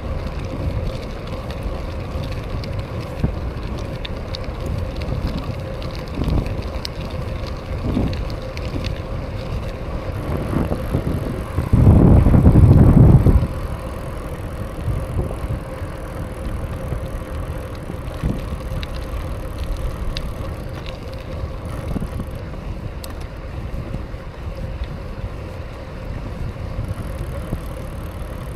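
BMX bike being ridden: steady rolling tyre noise with wind on the microphone, and one louder rush lasting about a second and a half partway through.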